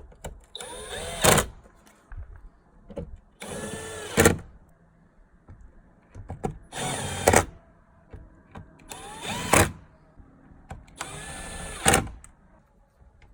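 Power drill-driver driving screws in five short runs, each a motor whine that climbs and falls in pitch and ends sharply as the screw seats. The screws are fastening the cover of a Tesla Wall Connector.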